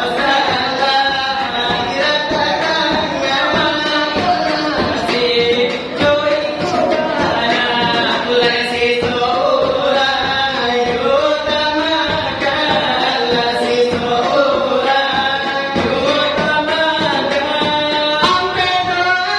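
Minangkabau salawat dulang singing: a sung melody in the dendang style, carried on without a break, with the rhythm tapped by hand on a brass tray (dulang).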